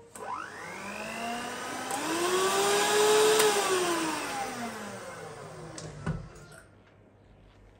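Electric mixer motor beating batter: its whine rises in pitch as it speeds up, peaks about three seconds in, then falls as it slows and stops about six seconds in with a click.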